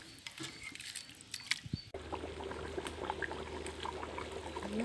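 Rice and chicken masala in an aluminium pot boiling over a wood fire, bubbling with many small pops after a cut about two seconds in, the rice just added. In the first two seconds a ladle stirs and knocks lightly in the pot; a short falling tone sounds near the end.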